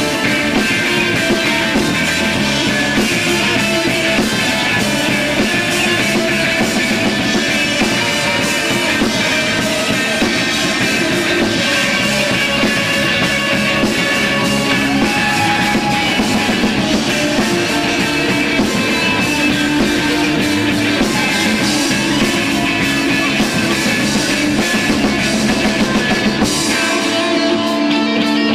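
Live rock band playing loud and without a break: electric guitar and drum kit.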